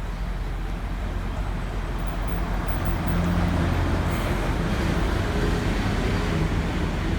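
Steady motor-vehicle noise: an engine humming low under a hiss of road and traffic noise, getting a little louder about two and a half seconds in.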